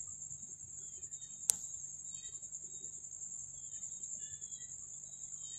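Insects trilling steadily in one high continuous note, with faint short bird chirps and one sharp click about a second and a half in.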